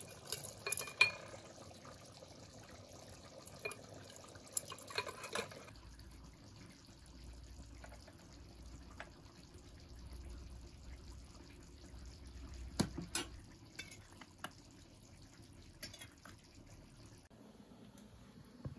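Metal ladle clinking and scraping against a glass jar as thick eggplant-and-tomato stew is spooned in, with soft wet sounds of the sauce. The sharpest clinks come in the first second, with more a few seconds later.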